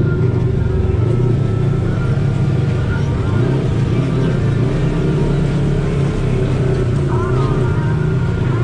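Side-by-side UTV engine running steadily at low trail speed, a low hum that rises and falls slightly in pitch.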